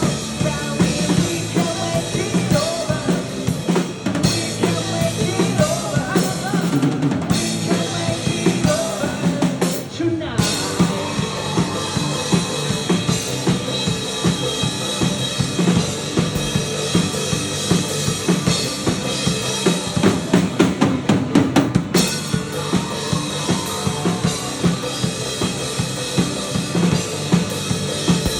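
Live rock band playing through a club PA, with a driving drum kit (kick, snare and rimshots) under guitars and bass. There is a brief break in the music about ten seconds in before the full band comes back in.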